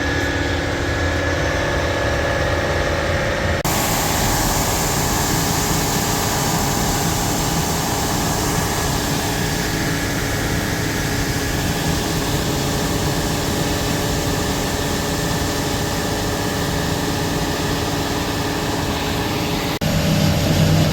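Engine of heavy harvest machinery running steadily. The sound changes abruptly about four seconds in, when a broad hiss joins it.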